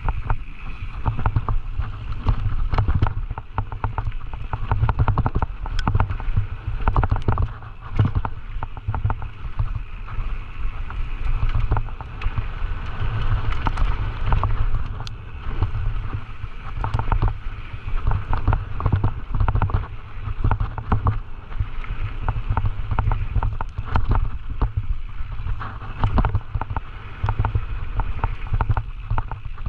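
Scott Gambler 920 downhill mountain bike descending a rough trail at speed, heard from an on-bike or helmet camera. Tyres run over dirt and rock with constant rattles and clicks from chain and frame over the bumps, under a heavy low rumble of wind on the microphone.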